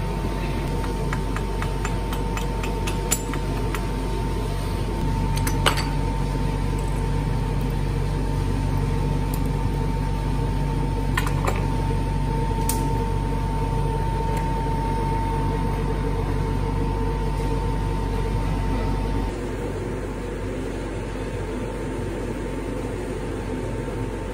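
Steady mechanical hum with a thin high whine, like a fan or extractor running, broken by a few sharp clicks and knocks as the clamped mould is handled and opened, the loudest about six seconds in.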